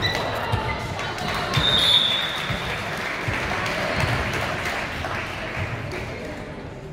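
Many voices of players and spectators chattering and calling in a gymnasium, echoing, with irregular dull thuds of a volleyball bounced on the wooden floor and a brief shrill note about two seconds in. The voices fade somewhat toward the end.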